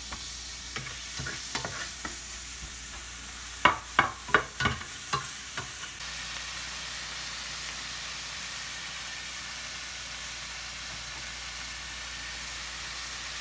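Sautéed pork, garlic, onion and tomato sizzling in a stainless steel pot over high heat, with a spatula scraping and clinking against the pot several times in the first half. From about six seconds in, only the steady sizzle is heard.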